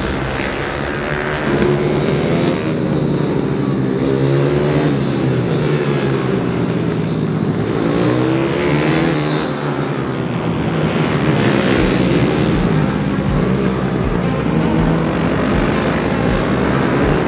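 Several 190 cc single-cylinder minibike engines racing past, their pitch rising and falling as the riders go on and off the throttle through the corners.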